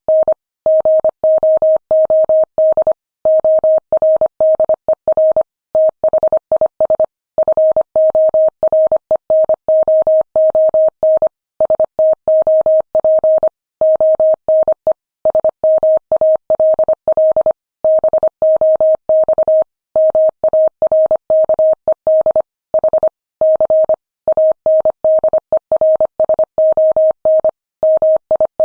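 Morse code sent at 25 words per minute: a single steady mid-pitched tone keyed on and off in quick short and long pulses (dits and dahs), with brief gaps between letters and longer pauses between words.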